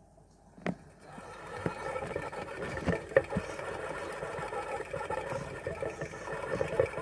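Clear plastic pet exercise wheel spinning with a steady rattling whir as a small pet runs in it, starting about a second in.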